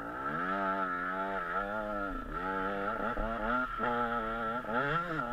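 KTM 125 SX two-stroke single-cylinder motocross engine under riding load, its revs climbing and dropping several times in a row as the throttle is worked along the track.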